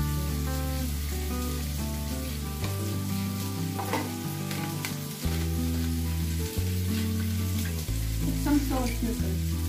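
Cherry tomatoes, onion and garlic sizzling steadily in olive oil in a frying pan, with a few light clicks about four seconds in and near the end. Background music with slow-changing bass notes plays over it.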